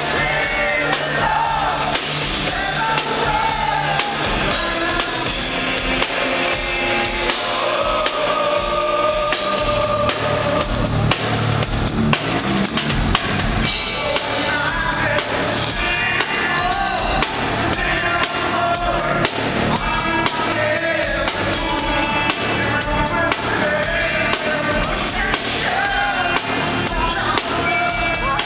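Live progressive rock band performance: a male lead vocalist sings into a microphone over a full drum kit and electric guitar, loud and continuous.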